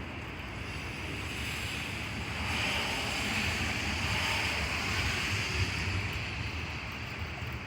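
Rushing noise of wind and rain during a thunderstorm, swelling for a few seconds in the middle before easing back.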